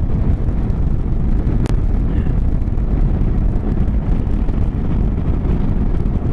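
Motorcycle engine running at a steady cruise with wind buffeting the microphone, a dense low rumble throughout. A single brief click about a second and a half in.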